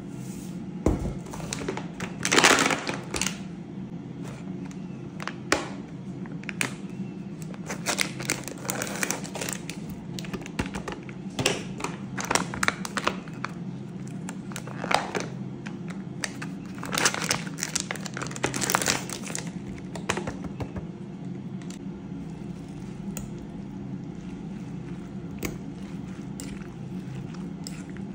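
Plastic food packet crinkling and rustling as it is handled, in bursts, with light clicks as diced ham is tipped into a glass bowl. A steady low hum runs underneath.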